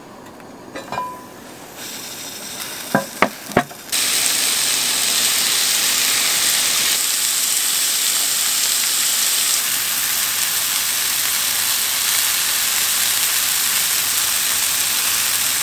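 A few sharp metallic clanks of cast-iron cookware being handled, three in quick succession just after three seconds. Then, about four seconds in, a steady sizzle starts suddenly: pork belly frying on a hot cast-iron pan.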